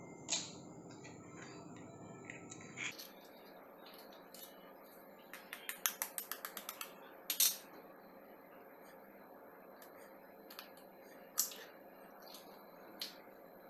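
Eggs being cracked over a stainless steel bowl: a quick run of light taps of a steel spoon against an eggshell around the middle, and a few sharp single clicks as shells break open.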